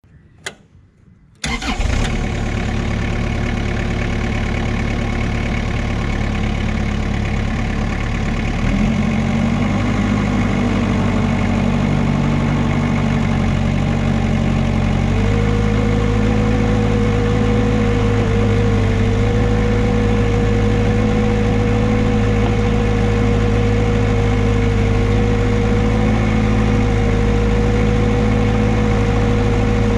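Vermeer 725 mini skid steer's engine starting after a short click and then running steadily. Its speed steps up twice, once about a third of the way in and again about halfway through, and with the second step a steady whine joins the engine note.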